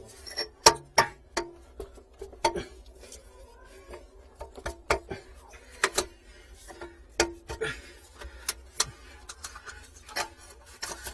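Irregular sharp metallic clicks and knocks, sometimes several in a second, from a ball valve and pipe fittings on a water line being handled and tightened with hand tools.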